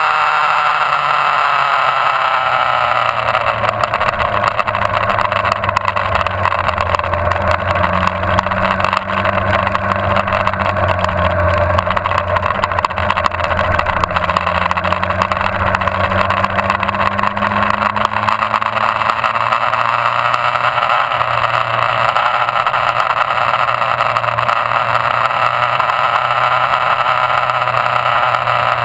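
Motorcycle engine running under way, recorded by a camera mounted on the bike, with heavy wind rush over the microphone. The engine note falls over the first few seconds, then holds fairly steady and rises gently past the middle.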